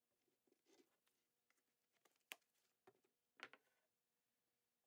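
Near silence, broken by a few faint clicks and taps of gloved hands handling a plastic cup and a pair of pliers on a plywood bench.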